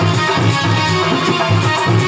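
Live Odia folk-theatre band music: an electric keyboard playing a melody over drums and small hand cymbals keeping a steady, even beat.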